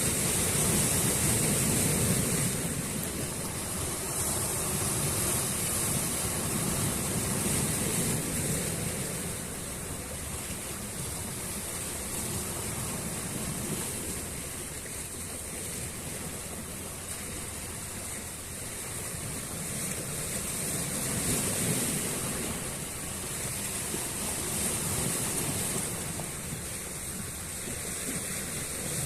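Sea waves breaking on the shore, a continuous rush of surf that swells and ebbs every several seconds.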